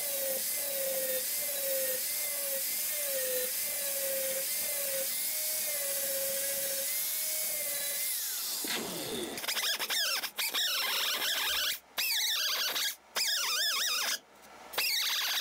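Grinder running against freshly welded, thin rust-pitted sheet metal, a steady high whine with hiss whose pitch dips and recovers as it is pressed in. About eight seconds in the whine winds down, then the grinding goes on rougher in short runs broken by brief stops.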